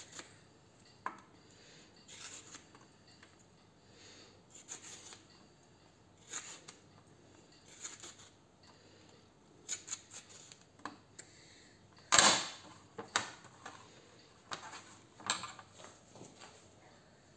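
Metal swivel peeler scraping along a white radish in short, repeated strokes, with a louder knock on the plate about twelve seconds in.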